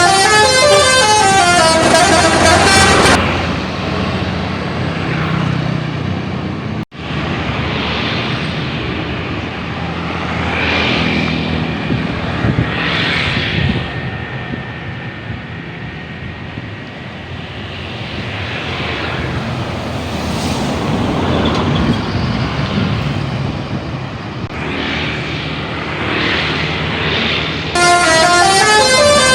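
Bus 'telolet' multi-tone musical horn playing its tune of rapidly stepping notes for about the first three seconds, then again near the end. In between, bus engines and road noise.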